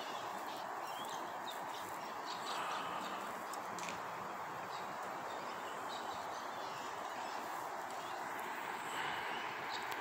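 Outdoor ambience among trees: a steady hiss with scattered short, high bird chirps throughout.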